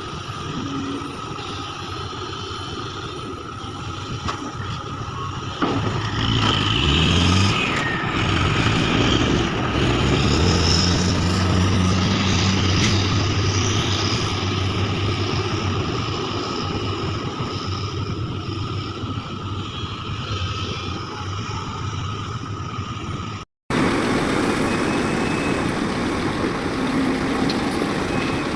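A motor vehicle's engine running; its pitch rises about six seconds in, then holds steady.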